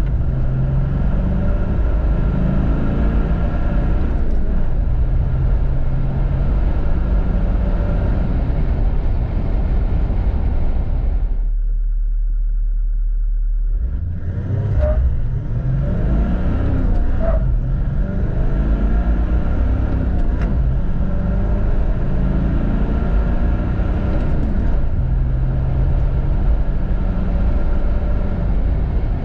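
Toyota LandCruiser 70 Series' 4.5-litre turbo-diesel V8 heard from inside the cabin, pulling hard under acceleration with the pitch stepping at gear changes. About halfway it settles to a steady low idle for a couple of seconds, then pulls away again from a standstill, rising in pitch through the gears.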